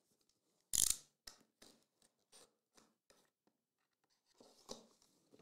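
Cardboard jersey box being handled and opened: a sharp scrape about a second in, then a run of short scratching strokes, and a rustle near the end.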